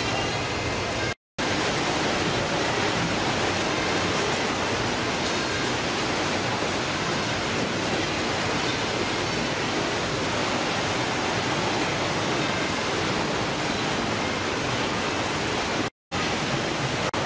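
Steady, loud din of fish-processing machinery and conveyors on a fishing boat's factory deck. It cuts out to silence twice, briefly, about a second in and near the end.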